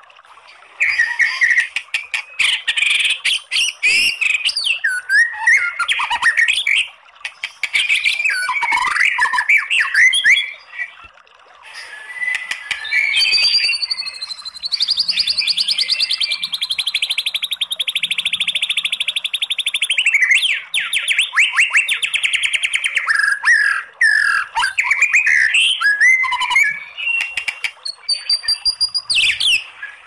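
White-rumped shama (murai batu) singing: quick, varied whistled and chattering phrases, with a long fast rattling trill (a long 'tembakan', or shot) held for about five seconds past the middle.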